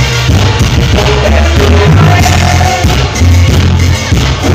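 Cumbia played live by a band through a loud concert sound system, with a singing voice over a heavy bass line and a steady dance beat.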